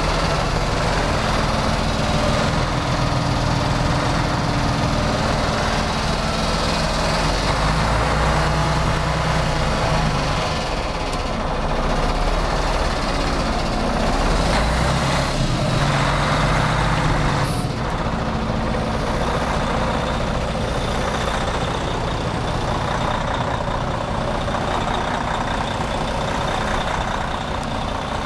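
Diesel engine of a Western Star 4700 dump and plow truck running at a steady idle, heard up close by the chassis.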